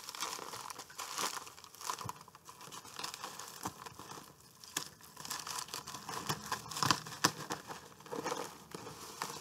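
A cardboard shipping box being opened by hand, with the packaging rustling and crinkling in irregular handling noises and small knocks.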